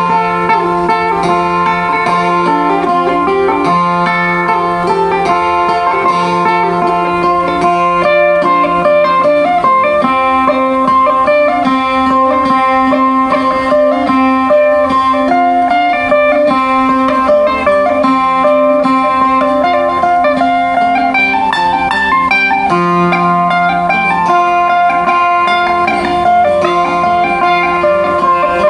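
Sape, the Kayan plucked boat lute of Borneo, playing a repeating melody over a held low note; the low note steps higher through the middle stretch and drops back near the end.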